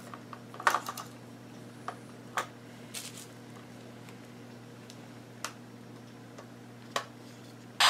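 Scattered small plastic clicks and knocks as batteries are fitted into a compact portable radio's battery compartment and its cover is handled, with a louder short crackle near the end. A steady low electrical hum runs underneath.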